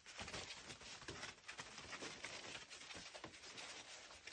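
Faint, irregular rustling and scratching of a Lancashire Heeler and her puppies' paws scrabbling on a plastic tarp and puppy pads as they play.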